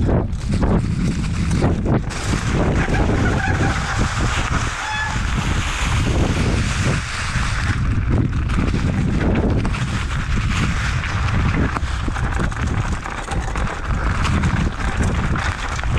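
Mountain bike riding fast down a dirt trail strewn with dry leaves. Wind rushes over the helmet or chest camera's microphone, the tyres crunch over leaves and dirt, and the bike rattles over bumps.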